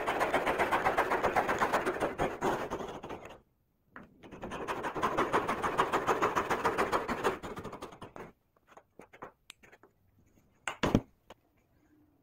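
A hand tool cutting wood in two long, even bouts of fast rasping strokes with a short pause between them. These are followed by a few light taps and one sharp wooden knock near the end.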